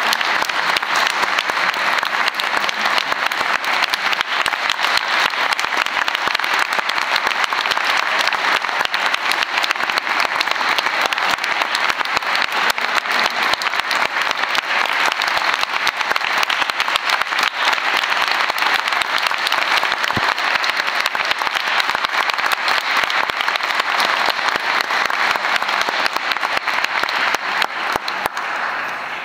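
Audience applause: steady clapping that dies away near the end.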